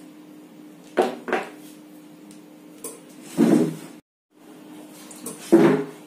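Hand tools and metal parts being handled on a wooden workbench: a few sharp clinks and knocks, then longer scraping handling noises, over a faint steady hum.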